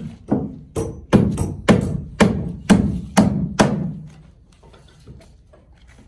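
Hammer striking nails into wooden beam formwork: about eight sharp knocks, roughly two a second, that stop a little before four seconds in.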